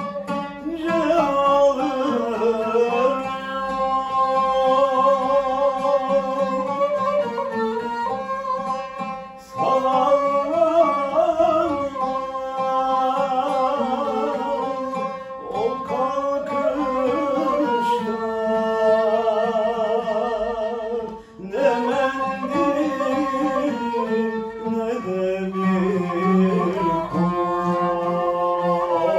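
A male solo voice singing a Turkish classical song in makam Nihavend, accompanied by a plucked oud and a bowed kemençe. The melody moves in long, wavering held notes, with brief breaks about nine and twenty-one seconds in.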